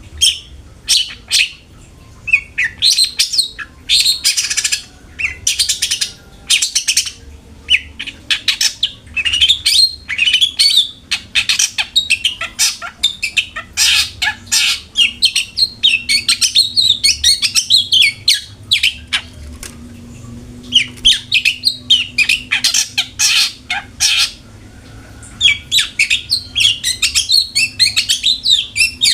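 Long-tailed shrike (cendet) singing a fast, busy chatter of high, sharp chirps, in runs broken by short pauses.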